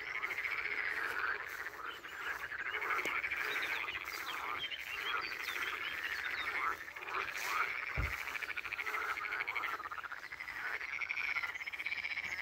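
A chorus of many frogs croaking together, their fast, pulsed calls overlapping without a break.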